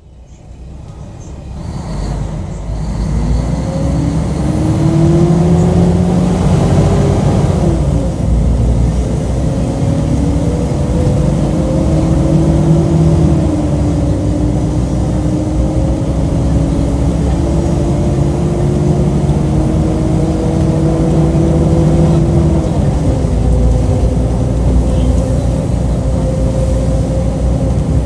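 Mercedes-Benz O-500UA articulated bus's diesel engine pulling away and accelerating. The engine note rises and falls back at each gear change, about 8, 14 and 23 seconds in.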